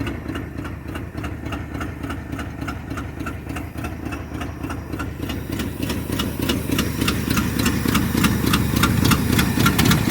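1978 Ford F-350 dually's engine idling steadily with an even ticking beat, getting a little louder toward the end. It runs well, though the owner reckons it probably needs new spark plugs.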